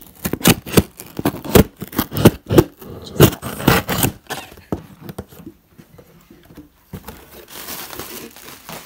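Cardboard shipping box being opened: packing tape slit with a blade and the box and packaging torn and crinkled, a quick run of loud rustling tears through the first few seconds, then softer rustling near the end.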